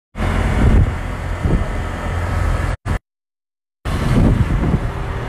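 Wind rushing over the microphone with motorcycle engine and traffic noise, as heard from the back of a moving motorcycle taxi. The sound cuts out completely for about a second near the middle.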